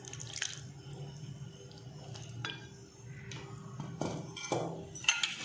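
Glass dish and silicone spatula clinking and scraping against a glass bowl as jelly cubes are tipped out, a few light knocks spread out, then several close together near the end.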